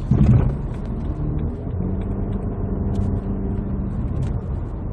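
BMW 320i driving at road speed, heard from inside the cabin: a steady engine hum over road and tyre noise.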